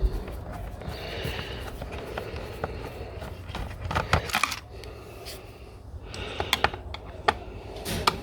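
Irregular light clicks and clinks of a small screwdriver and screws against metal and plastic parts while an autoclave's electronics are taken apart, with a busier clatter about four seconds in.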